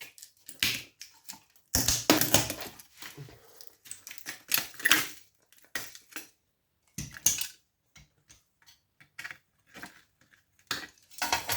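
A small transformer being prised and snapped off a power-supply circuit board: a run of irregular cracking, scraping clicks, with louder bursts about two, five, seven and eleven seconds in.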